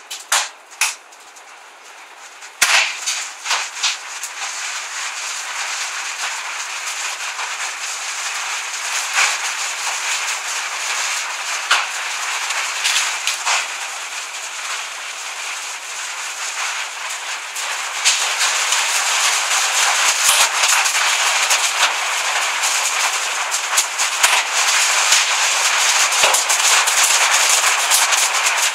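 Hailstorm: hailstones hitting hard surfaces in a dense clatter. It starts as a few scattered sharp hits, thickens into a steady rattle a few seconds in, and grows louder about two-thirds of the way through.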